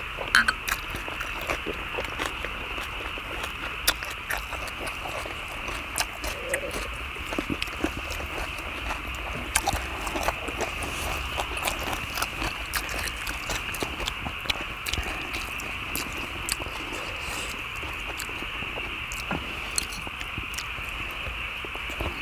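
Eating sounds: chopsticks clicking and tapping against a cauldron-lid griddle and dishes, and chewing, with sharp clinks about half a second in as soju is poured. A steady high-pitched chorus runs in the background.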